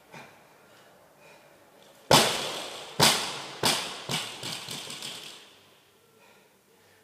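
A loaded barbell with bumper plates is dropped from overhead onto rubber gym flooring. One heavy impact about two seconds in is followed by a series of smaller thuds as it bounces, dying away over about three seconds.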